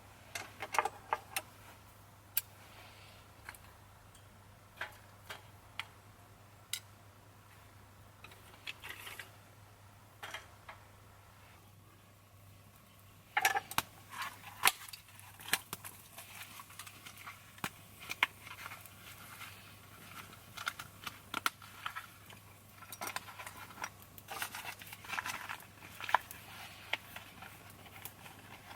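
Irregular light clicks, clinks and knocks of small objects being handled, busier from about halfway through, over a faint steady low hum.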